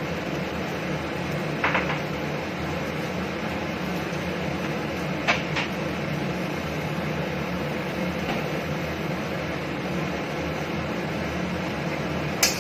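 Steady mechanical hum with a hiss, broken by a few light clicks. Near the end comes a metal clink as the stainless steel wok lid is taken hold of and lifted.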